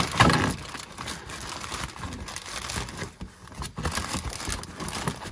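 Plastic Ziploc bag crinkling and rustling as gloved hands work it around an oil filter. It is loudest just after the start and dips a little after three seconds in.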